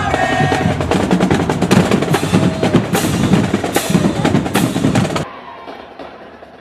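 Marching band drumline playing a fast cadence of snare and bass drums, with a few held horn notes fading at the start; it cuts off abruptly about five seconds in, leaving a much quieter background.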